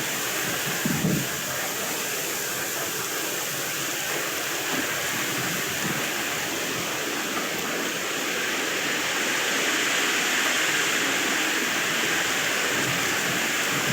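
Wind noise: a steady rushing hiss, with a brief low rumble of wind buffeting the microphone about a second in.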